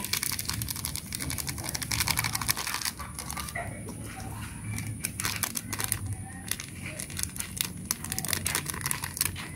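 Plastic seasoning sachets crinkling as they are torn open and shaken out. The crackles run in a dense string for about the first three seconds, then come more sparsely.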